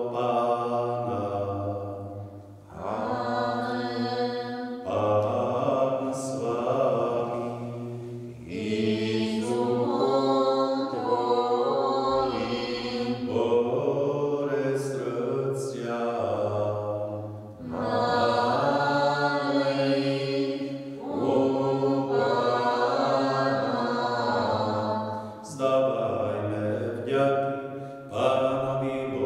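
A Catholic priest chanting the preface of the Mass solo, a man's voice singing the prayer text in long phrases on a recitation tone with short pauses for breath.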